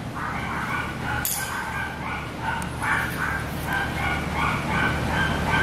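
A small dog yapping over and over: short, high-pitched yips about three a second, with no break.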